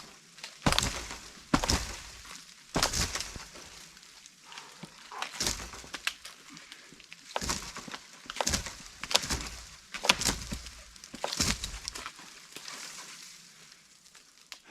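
Boot kicks against a standing dead tree trunk to knock it down: about nine sudden thuds, roughly one a second with uneven gaps, stopping shortly before the end.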